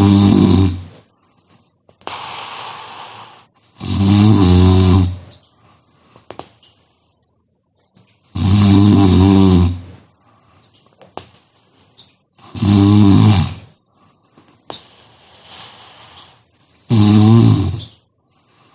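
A person snoring heavily: five loud, pitched snores about four seconds apart, each lasting over a second, with quieter, breathy exhalations between some of them.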